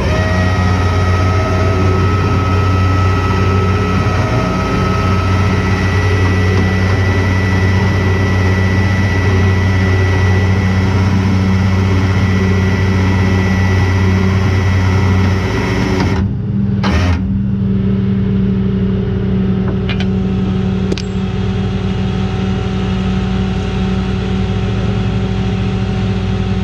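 Vehicle engine running steadily, with a short break in the sound about sixteen seconds in.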